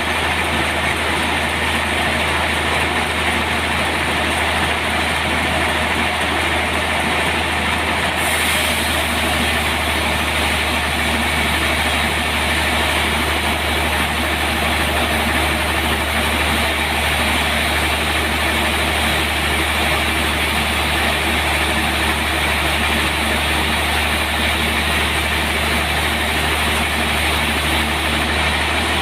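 Sawmill machinery running steadily with a constant low hum. A brighter hiss comes in about eight seconds in and eases off near the end.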